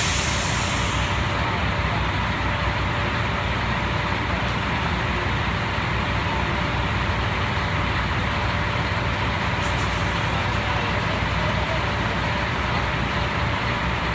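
Concrete mixer truck running with its drum turning: a steady, even rumble. A brief hiss comes at the very start.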